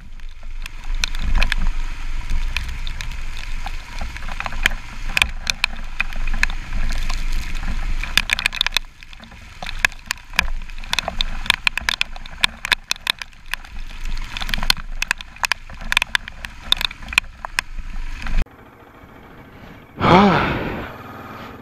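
Royal Enfield Himalayan ridden over a wet, rocky trail: a low engine and wind rumble under a dense clatter of knocks and rattles as the bike jolts over stones. The sound cuts off suddenly near the end.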